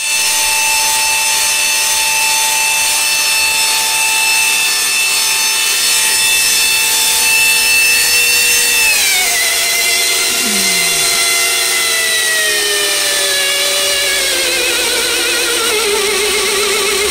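Belt grinder running on a 2 hp Hallmark AC motor fed by a KBAC-27D variable-frequency drive, a steady whine of many tones. About nine seconds in the drive is turned down and the whine drops in pitch, then keeps sliding lower and starts to waver as the grinder slows toward 30% speed, where the owner finds it vibrating too much.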